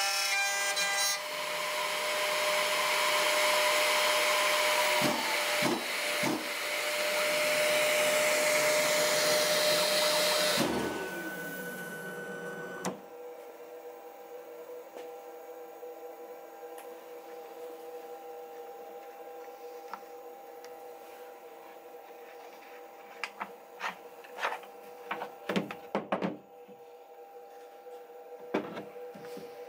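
CNC router spindle (800 W) milling through a sheet: a steady whine over harsh cutting noise. About eleven seconds in the spindle stops and winds down with a falling whine, leaving a low steady hum. Near the end there are a few sharp clicks and knocks as the cut sheet is handled.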